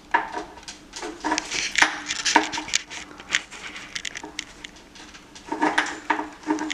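A dog stroller's plastic and metal frame parts clicking and rattling as the front section is worked onto the body and pushed into its clips. There is a flurry of clicks over the first few seconds and a second cluster near the end.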